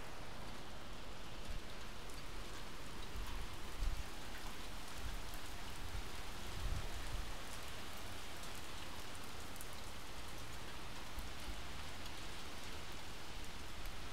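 Hail and rain falling steadily, a constant patter on pavement and surfaces with many small sharp ticks of single impacts. There is a low bump about four seconds in and a smaller one near seven seconds.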